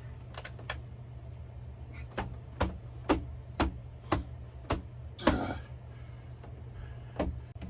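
Irregular sharp clicks and knocks, about ten of them, from hands and tools working on a guitar amp's speaker cabinet, over a steady low hum.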